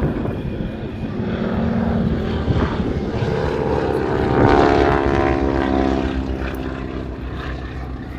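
Propeller aeroplane flying past. Its engine note grows loudest about halfway through, then falls in pitch and fades as it moves away.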